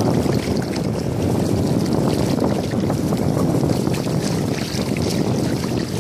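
Steady wind buffeting the phone's microphone, with light splashing and sloshing of shallow water from wading across a sand bar.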